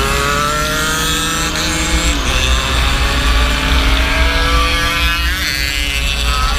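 Motorcycle engine accelerating through the gears, its pitch rising, falling sharply at a shift about two seconds in and again near the end, with a steady wind rumble on the microphone.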